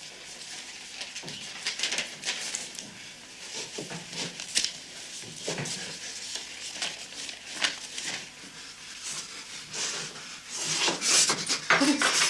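Cloth rustling and rubbing in irregular bursts as a man works fabric against his chest, growing louder and busier near the end.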